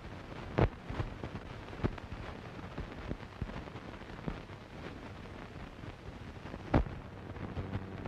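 Hiss and crackle of a worn 1930s optical film soundtrack, with two loud pops, about half a second in and near the end, and scattered fainter clicks.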